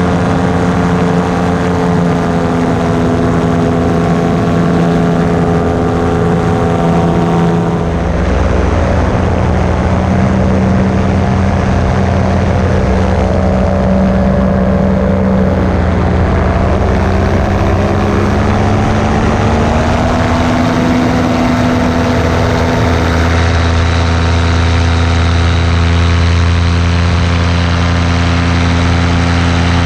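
Steady drone of a small propeller-driven motor running at cruise, with an abrupt change in its sound about eight seconds in and a slow rise in pitch a little past halfway.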